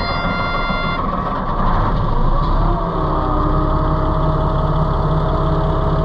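Komatsu bulldozer's diesel engine running hard, heard close from the machine, with a steady beeping-like tone for about the first second and a steady whine joining about three seconds in.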